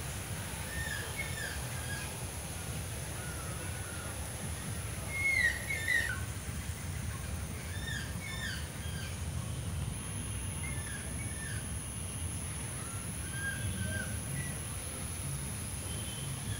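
Several wild birds calling, with short repeated chirps and whistles throughout and a louder call about five seconds in, over a steady high thin whine and low rumble.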